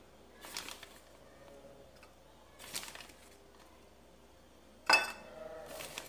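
A metal spoon clinking and scraping against a bowl a few times, about every two seconds, as spoonfuls of tapioca starch are scooped and tipped into beaten eggs. The sharpest clink comes near the end and rings briefly.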